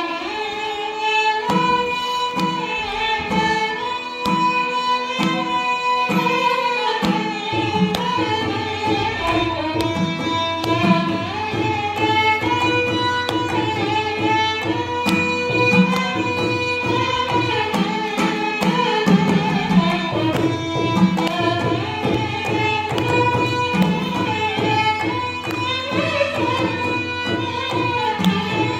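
Carnatic violin duet in raga Mayamalavagowla: two violins play the melody together in gliding, ornamented lines, accompanied by mridangam strokes that come in about a second in and grow fuller partway through.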